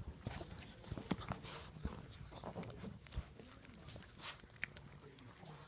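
Small dogs, a Yorkshire terrier and a Chihuahua, licking and scrambling right against the microphone: irregular wet clicks, snuffles and rustling of fur and bedding.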